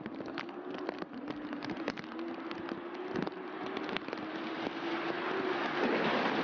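Heavy rain pattering on the camera, with many sharp drop clicks over a steady low hum that drifts slightly upward. There is a louder knock about three seconds in, and a rush of wind and spray builds over the last couple of seconds.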